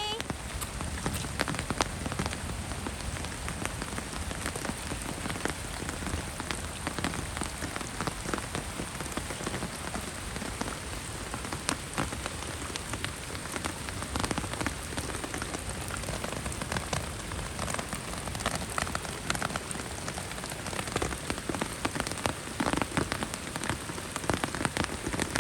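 Heavy rain falling steadily: an even hiss with many individual drops pattering on surfaces close by.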